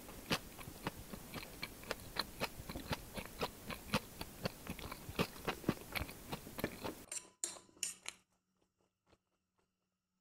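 A person chewing food close to a clip-on microphone: a dense run of small, irregular wet clicks and crunches that stops abruptly about seven seconds in.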